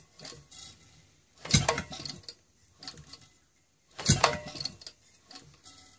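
Maytag Model 72 single-cylinder engine being turned over without firing: two loud metallic clanks with ringing, about two and a half seconds apart, and light ticking and clinking between them. The engine isn't catching because it isn't drawing fuel.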